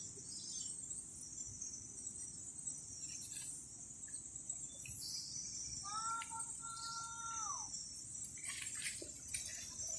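Outdoor ambience dominated by a steady high chirring of insects. About six seconds in, a single held tonal call lasts under two seconds and slides down in pitch at its end.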